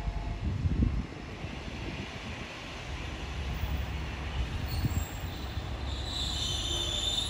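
JR Shikoku diesel railcar pulling into the platform, its engine and wheels rumbling low and steady. A high squeal sets in near the end as it slows to a stop.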